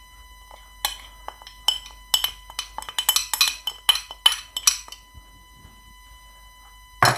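Quick glass-on-metal clinks and taps as lemon zest is knocked out of a small glass bowl into the stainless-steel pot of a Bosch Cookit kitchen machine, coming thickest in the middle. One single louder knock follows near the end.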